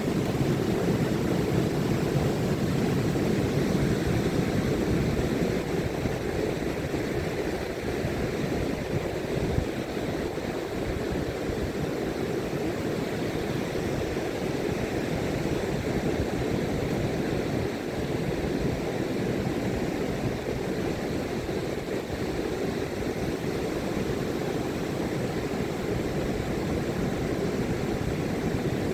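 Ocean surf breaking on the beach, a steady low rumble with no distinct single crashes.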